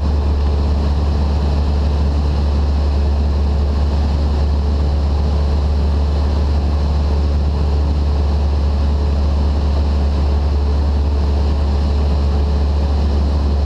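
Cessna 172's four-cylinder piston engine and propeller running steadily in flight, heard inside the cabin as a constant low drone with rushing airflow noise.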